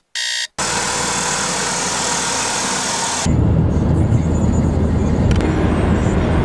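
The last of a series of electronic alarm-clock beeps ends about half a second in. It gives way to steady road and engine noise of a car driving on a highway, heard from inside the car. About three seconds in, the noise switches abruptly to a louder, deeper rumble.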